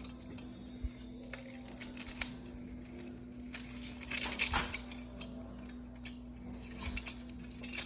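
Thin aluminum sheet from a cut-up drink can crinkling and clicking as it is handled and wrapped around a bolt, in irregular crackles that bunch up about four seconds in, over a steady low hum.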